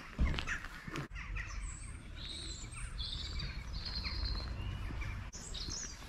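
Small birds chirping and calling, with short high chirps and a couple of longer whistled notes in the middle, over a steady low rumble. A single thump sounds just after the start.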